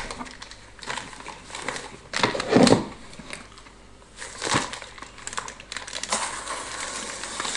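Packaging being handled, crumpled and crinkled by hand in irregular crackling bursts, louder for a moment about two and a half seconds in and again past four seconds.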